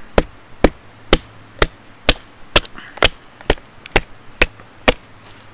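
Wooden mallet striking the spine of a Mora Bushcraft Black knife, batoning the blade down through a log round to split it: about eleven sharp knocks, evenly spaced at roughly two a second, stopping shortly before the end.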